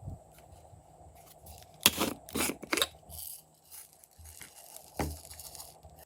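Slime being squished and pressed by hand, making a quick run of sharp, wet pops about two seconds in, another pop about five seconds in, and faint crinkling between them.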